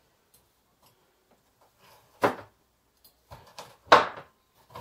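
Kitchen knife chopping broccoli on a wooden cutting board: a few separate knocks of the blade against the board, starting about two seconds in.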